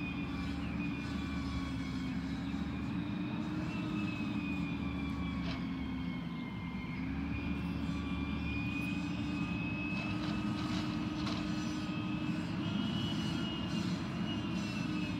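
Peterbilt 320 garbage truck's engine running steadily, with a thin high whine that drifts slightly up and down in pitch.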